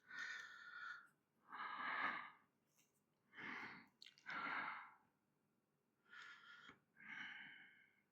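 A man breathing heavily, about six breaths in and out, each lasting under a second, with short gaps between them.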